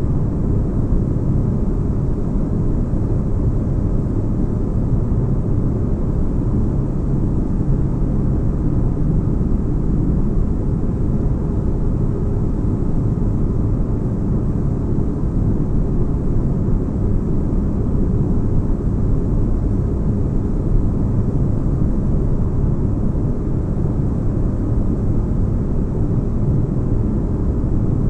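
Synthetic spaceship-cabin ambience: a steady deep rumbling drone, mostly bass, with no breaks or changes.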